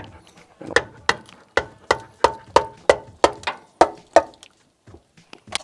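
Ratchet wrench clicking in a steady rhythm, about three sharp metallic clicks a second, as the bolts of a truck's rear differential cover are backed out; it stops a little after four seconds.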